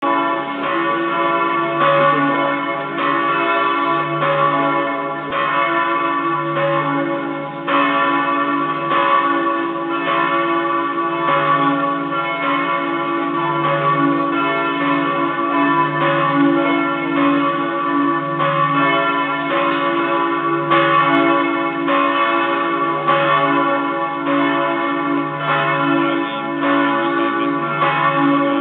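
Several large church bells ringing together in a continuous peal. Fresh strokes come about once a second over a long, overlapping ring.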